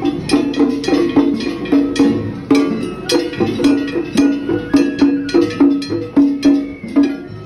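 Japanese festival hayashi music played live on a float truck: taiko drums beaten in a quick, steady rhythm with sharp metallic clanks of a small hand gong over them.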